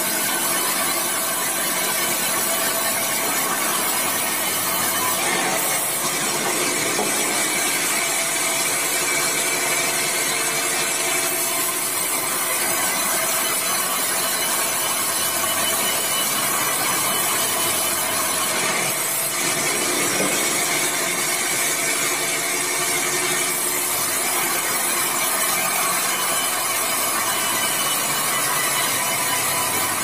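Band sawmill's vertical blade cutting steadily through a meranti timber cant to make planks, its motor running on under a continuous, unbroken sawing noise.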